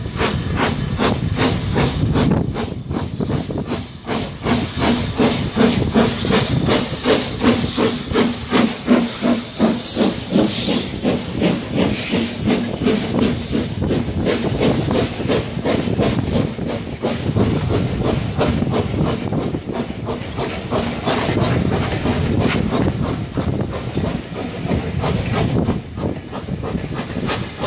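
BR Standard Class 4MT 4-6-0 steam locomotive No. 75078 passing under steam, with a rapid, even exhaust beat and hissing steam, loudest as the engine goes by about a third of the way in. Its coaches then roll past, their wheels clattering on the rails.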